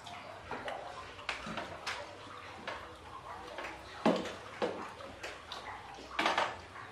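Tableware and eating sounds at a meal: scattered clicks and taps of plates and spoons, with louder knocks about four seconds in and a cluster near the end.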